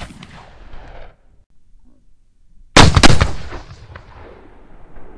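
A rifle shot about three seconds in, sharp and loud, trailing off over about a second. At the start, the tail of a shot fired just before fades out.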